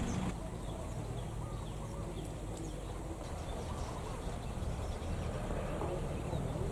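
Outdoor ambience: a steady low rumble with faint, scattered bird chirps over it.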